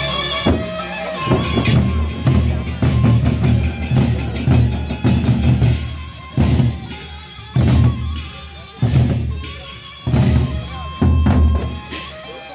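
Gendang beleq, the large Sasak barrel drums of Lombok, beaten together by a troupe with cymbals. A dense, driving drum beat starts about a second in; from about halfway it breaks into single heavy accented strokes roughly once a second, each with a cymbal crash, with quieter playing between.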